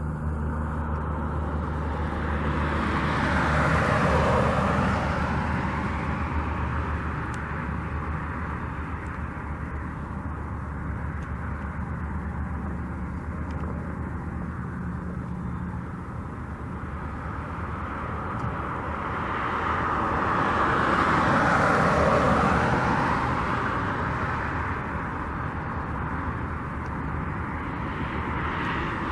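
Outdoor traffic: vehicles pass twice, each one rising and fading over a few seconds, over a steady low hum.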